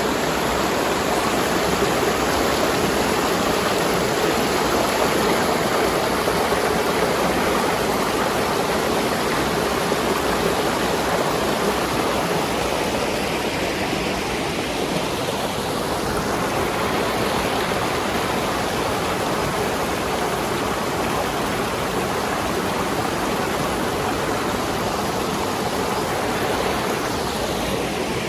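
A mountain gorge stream rushing over rocks: a loud, steady roar of fast white water, running high after heavy rain.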